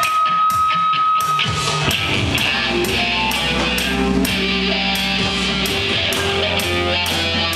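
Live rock band playing loud: electric guitar and drum kit, with a cymbal struck on a steady beat about twice a second. A single held high note stops about a second and a half in, and the guitars come in fuller.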